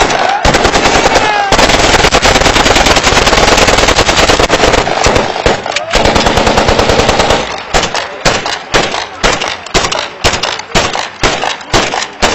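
Automatic gunfire from Kalashnikov-pattern rifles fired into the air: a long, continuous rattle of rapid shots, breaking up after about seven seconds into shorter bursts and separate shots.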